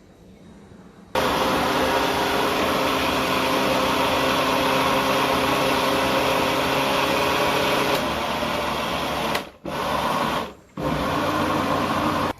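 Electric blender running, grinding the green curry paste ingredients. It starts suddenly about a second in, changes pitch about two-thirds of the way through, and cuts out twice briefly near the end before stopping.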